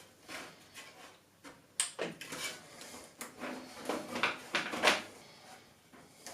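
Hands working on computer hardware during assembly: a run of irregular plastic and metal clicks, knocks and rustles, the sharpest knocks about two seconds in and near five seconds.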